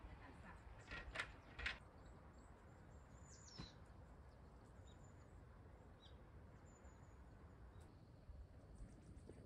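Near silence: faint outdoor ambience with a steady low rumble, a few soft clicks between one and two seconds in, and one brief, faint high chirp falling in pitch a little after the middle.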